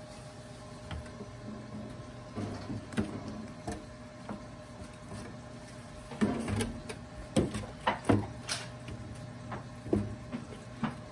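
Wooden spoon scraping and knocking against a disposable aluminium foil pan as chicken drumsticks are turned, over a steady low hum. The scrapes and knocks come thicker and louder from about six seconds in.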